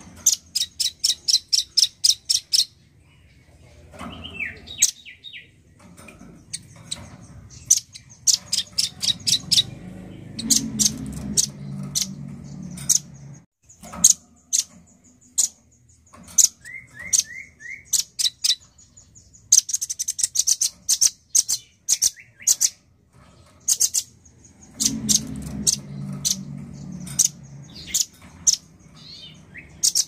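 Male velvet-fronted nuthatch (rambatan paruh merah) calling in runs of sharp, high chips, several a second, again and again with short pauses between runs.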